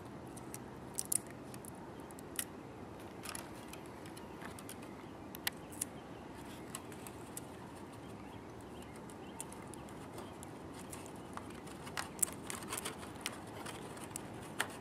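Scattered small clicks and light rustling of hands handling a 3 mm Depron foam RC plane while refitting its fallen-off single-cell LiPo battery, over a steady low background noise.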